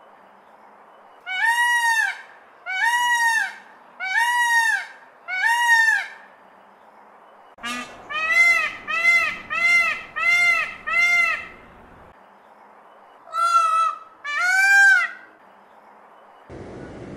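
Indian peafowl (peacock) giving its loud honking calls, each one rising and then falling in pitch. There are eleven calls in three bouts: four evenly spaced, then five in quicker succession, then two. A different, noisier sound begins just before the end.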